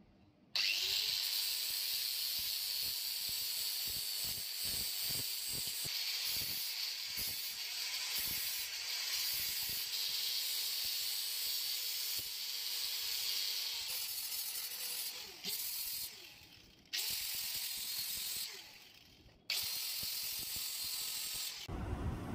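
Angle grinder running with its disc ground against a steel part of an old hand drill, a steady high hiss, heard turned down low. It eases off and cuts out twice in the second half and stops shortly before the end.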